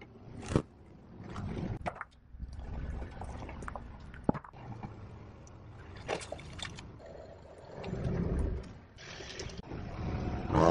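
A car tyre rolling slowly over objects on concrete and crushing them one after another: several sharp pops and cracks with rumbling tyre noise between them, and water balloons bursting and splashing.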